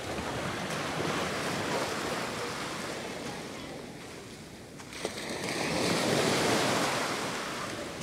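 Small Gulf of Mexico waves breaking and washing up the sand, a steady wash that eases off and then swells to a louder surge a little past halfway.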